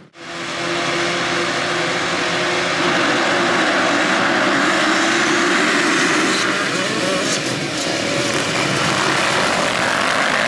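A pack of motocross bikes racing together, their engines at high revs merging into one loud, continuous drone. It comes in after a brief dropout at the start and builds to full loudness over the first few seconds.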